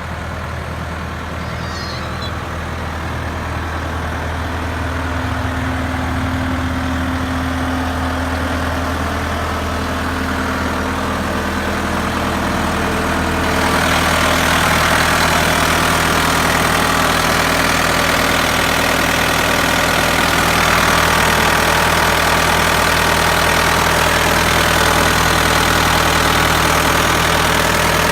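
Bobcat S650 skid steer's diesel engine running steadily. About halfway through it gets louder and fuller.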